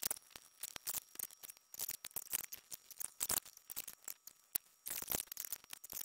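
Steel bar clamps being handled, slid and tightened on a glued-up hardwood board: a quick, irregular run of metal clicks and clatters.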